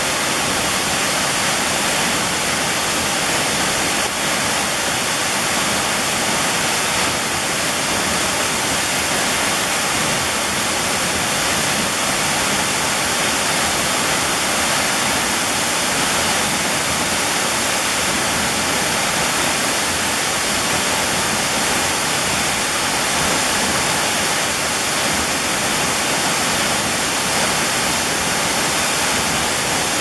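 Tall waterfall in full flow pouring onto rocks and into its plunge pool: a loud, steady rush of falling water.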